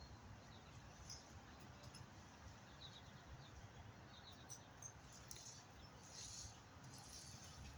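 Near silence: faint outdoor background with a low rumble and a few faint, short high chirps here and there.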